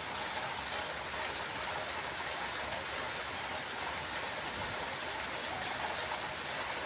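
Steady, even hiss of outdoor background noise with no distinct sounds standing out.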